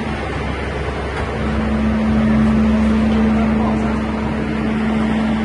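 Engine of a lifting machine running steadily, with a steady hum that comes up about a second in and holds.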